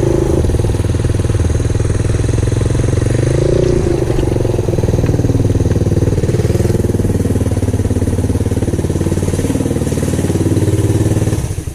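Small motorcycle engine of a homemade reverse trike running steadily while riding at low speed. The sound stops abruptly near the end.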